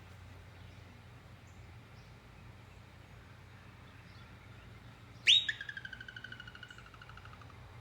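Groundhog's alarm whistle about five seconds in: one sudden loud high note that runs into a rapid trill, slowly falling in pitch and fading over about two seconds.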